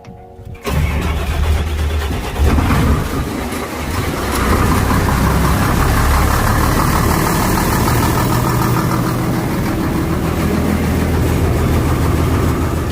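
Engine of a 200 kW generator starting suddenly, then running steadily.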